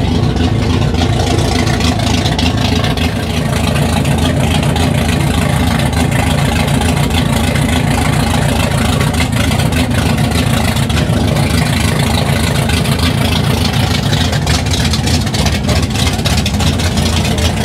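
An engine idling steadily, a low, even drone that does not rise or fall.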